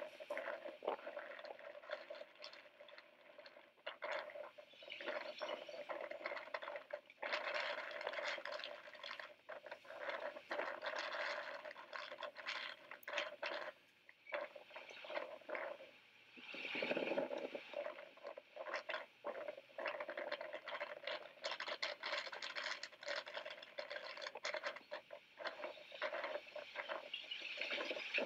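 Faint, continuous crackling and splashing from Kīlauea's Halemaʻumaʻu lava lake, its surface churning and spattering, with a brief lull about halfway through.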